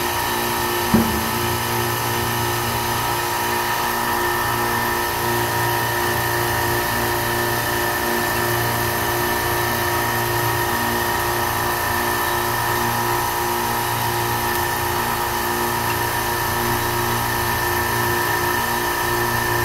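Refrigeration compressor unit running with a steady, even mechanical hum. A single sharp knock about a second in.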